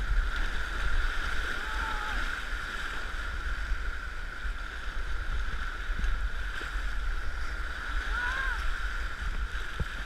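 Whitewater rapids rushing around an inflatable kayak, heard through a GoPro mounted on its bow: a steady rush of water with a constant low rumble.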